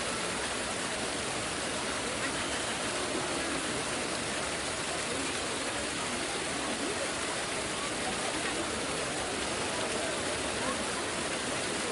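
Steady hubbub of a large crowd talking, many voices blending into a continuous wash with no single speaker standing out.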